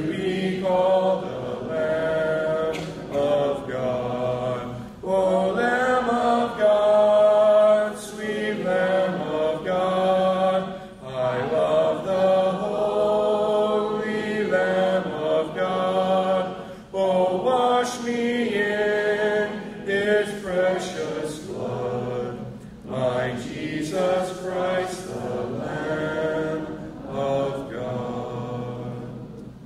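A hymn sung without instruments, in the a cappella style of a Church of Christ service, led by a man's voice at the microphone. It comes as sung phrases with held notes and short pauses for breath.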